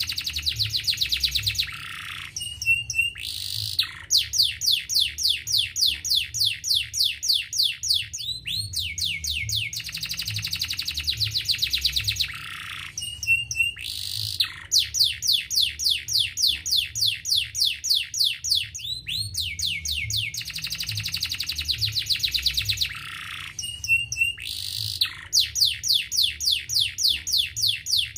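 Domestic canary singing: long rapid trills of quickly repeated falling notes, broken every few seconds by short high chirps and a brief pause before the next trill.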